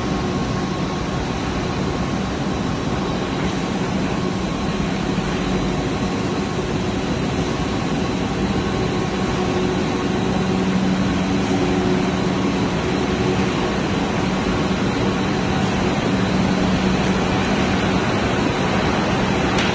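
Steady drone of running factory machinery in a steel coil processing line, with a constant low hum throughout.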